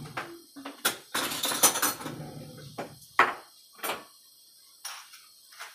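A kitchen drawer being opened and rummaged through: a clatter of utensils for about a second, then several separate sharp knocks and clicks.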